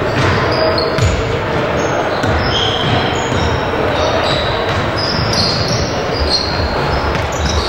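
Basketball game on an indoor hardwood court: a ball bouncing with dull thuds, short high sneaker squeaks, and players' voices over the steady hubbub of a large hall.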